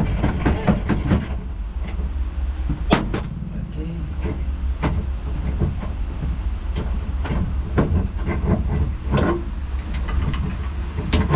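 Hand tools clicking and knocking against metal while a car's gear shifter is being unbolted: a quick run of clicks at first, then single sharp knocks every second or two, over a steady low hum.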